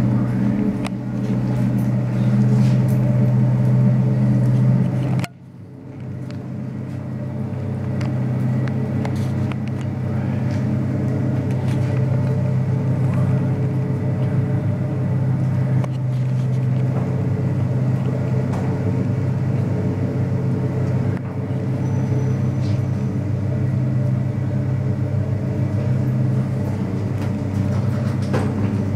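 Steady low mechanical hum with several even tones. It drops away suddenly about five seconds in and comes back up over the next few seconds.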